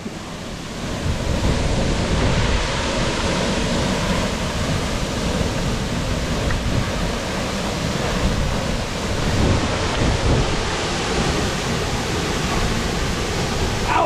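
Waterfall pouring steadily, a constant loud rush of falling water.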